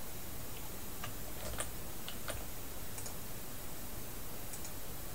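A handful of faint, irregular clicks from working a computer's mouse and keys, over a steady background hiss.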